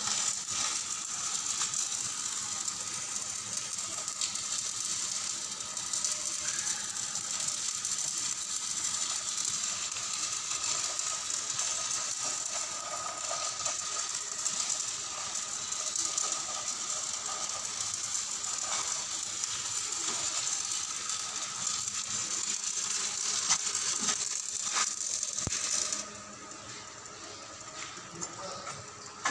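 Stick (shielded metal arc) welding on a pipe: the electric arc crackles and sizzles steadily, then cuts off suddenly near the end as the arc is broken.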